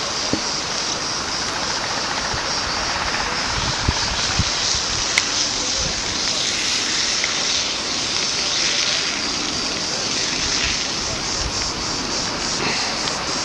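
Firefighting helicopter heard as a steady rushing drone, with a few faint pops in the first five seconds.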